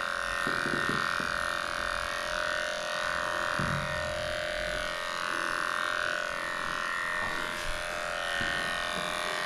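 Cordless dog grooming clipper running steadily as it shaves through a dog's coat, a constant motor hum, with a few soft low knocks.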